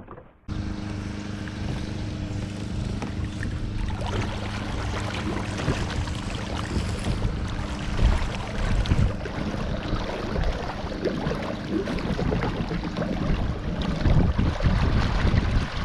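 Wind buffeting the microphone with water noise as a kayak moves across the water. It starts abruptly about half a second in, with a steady low hum under it for most of the stretch.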